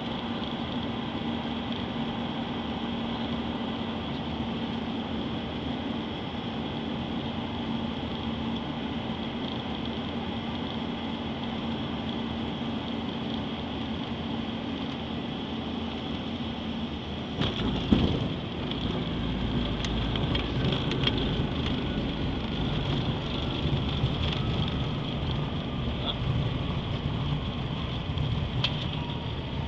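Inside the cabin of an ERJ-145 regional jet landing: steady engine and airflow noise with a constant hum, then a sharp thump of touchdown about 18 seconds in. After it comes a louder rumble of the wheels on the runway, and a whine that falls slowly in pitch as the engines spool down.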